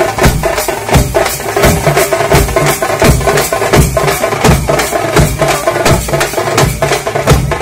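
Loud, fast drumming: a steady rhythm of sharp, cracking drum strokes, several a second, over deeper beats.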